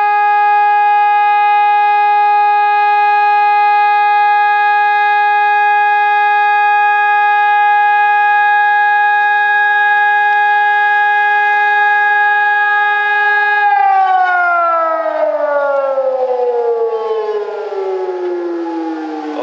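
Civil-defence warning siren sounding one loud, steady tone. About 14 seconds in, its pitch starts to fall smoothly as it winds down.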